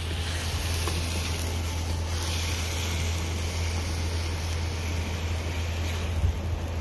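Food sizzling in a wok on a gas grill as it is stirred, over a steady low rumble.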